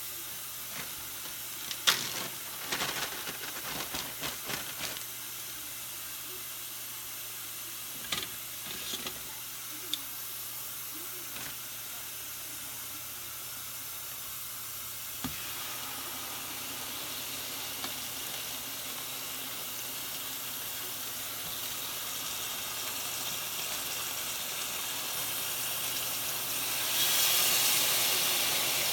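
Hot fat hissing steadily in a stainless steel skillet, with a few clicks and knocks of kitchen handling in the first ten seconds. Near the end, marinated raw chicken pieces go into the hot pan and it breaks into a much louder sizzle.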